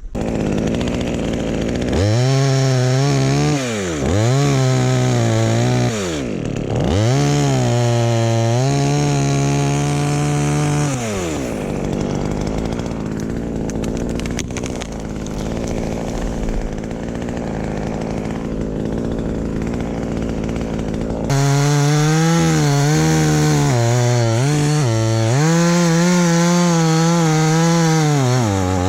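Two-stroke chainsaw running at high revs, its pitch dropping sharply and climbing again several times as the throttle is released and squeezed. In the middle it settles into a steadier, rougher sound, then revs up and down again.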